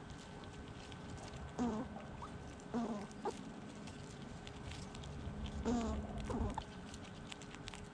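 An animal's short calls, about five of them, each dropping in pitch, with faint scattered light clicks between them.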